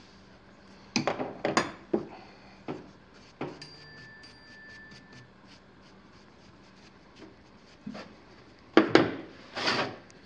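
Soft bristle brush rubbing over the freshly trimmed foot of a leather-hard clay bowl in a few quick strokes near the end. Several short knocks and scrapes of handling the clay come in the first few seconds.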